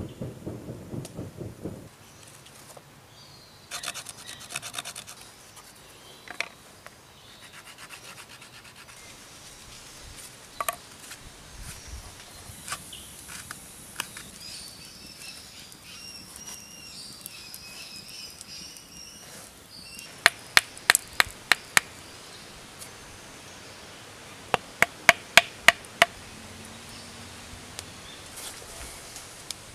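A small fire crackling briefly, then scraping and rubbing on a flat stone slab, with birds whistling. Two quick runs of about seven sharp clicks each, the loudest sounds, come in the last third.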